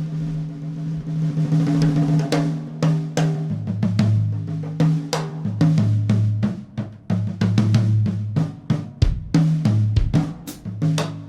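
Instrumental music: a drum kit playing a busy rhythm with snare, bass drum and cymbals over a bass line that steps between low notes. The drums come in more densely about two seconds in.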